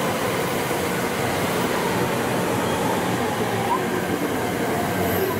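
JR West 683-series electric limited-express train moving along the station platform: a steady rumble of wheels and running gear with faint wavering motor whine.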